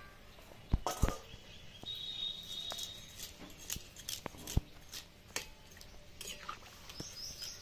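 Flat metal spatula stirring and separating chow mein noodles in hot water in an iron kadai, giving scattered clicks and knocks against the pan. A bird chirps briefly near the end.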